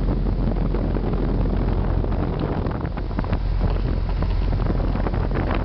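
Central air conditioner outdoor condensing units running: a steady rush of condenser-fan air over a low compressor hum.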